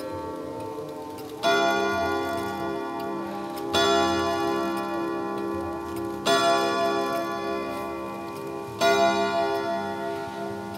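Mauthe antique pendulum wall clock striking four o'clock on its chime rods: four ringing strokes about two and a half seconds apart, each rich in overtones and fading slowly into the next.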